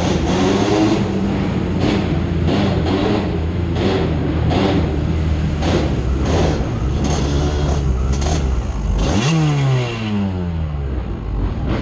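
Off-road vehicle engine running under load, with repeated knocks and clatter over rough ground. About nine seconds in it revs quickly, then the engine note falls away.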